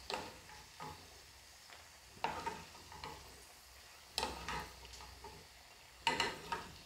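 A wooden spoon scraping and knocking against a small nonstick pan, about six short strokes, as fried cashew nuts are scooped out of hot coconut oil, which sizzles faintly underneath.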